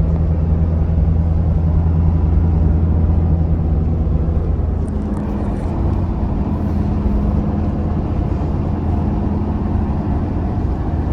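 An engine running steadily with a deep, even hum; its pitch shifts slightly about five seconds in.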